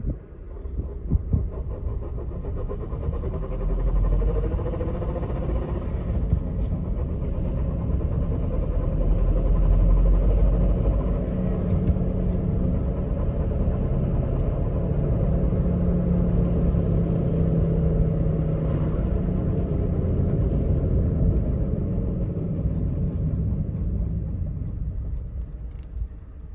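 Warmed-up car engine idling at its lower warm idle, with the abnormal noise of a 300,000 km engine running underneath, quieter at this idle speed. The sound grows louder over the first few seconds and fades near the end.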